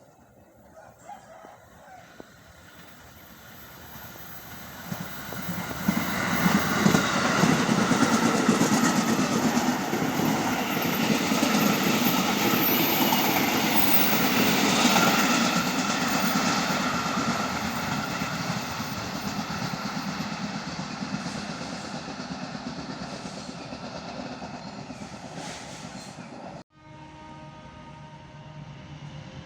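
A fast train approaches and passes through a curve: a rumble that builds over several seconds, then loud clattering of wheels on the rails that slowly fades. It cuts off suddenly near the end and gives way to a quieter steady hum.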